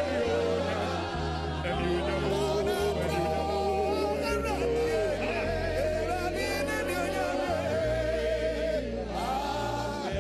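Live gospel worship music: a man sings lead into a microphone, his voice wavering in pitch, over a band whose bass steps between held notes about once a second, with the congregation singing along.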